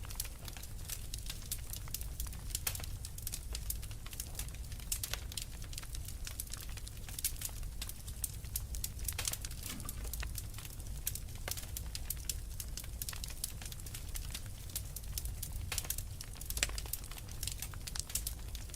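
Wood fire crackling, with frequent irregular sharp pops and snaps over a steady low rumble of the flames.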